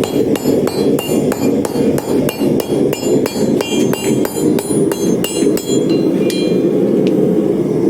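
Hammer blows on hot steel over an anvil, about three ringing strikes a second, while forging tongs; the blows die out about six seconds in. A steady roar of the forge runs underneath.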